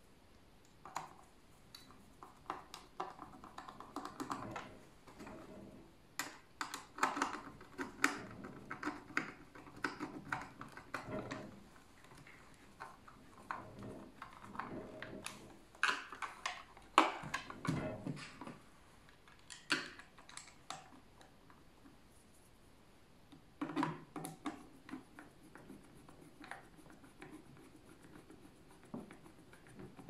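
Plastic parts of a Dyson V10 cordless vacuum being handled and fitted back together by hand: irregular clicks, knocks and scrapes as the battery pack is seated on the motor body.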